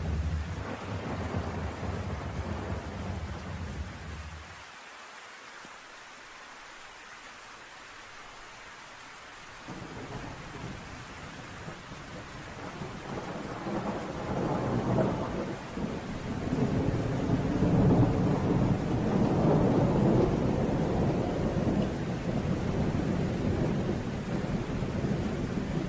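Rain falling steadily with rolling thunder. The deep rumble drops away about four seconds in, leaving only soft rain for several seconds, then builds again and is loudest past the middle.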